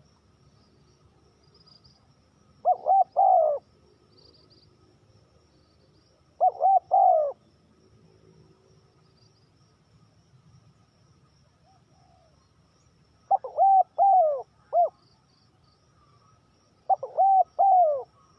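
Spotted dove cooing: four short phrases of three to five deep notes each, a few seconds apart.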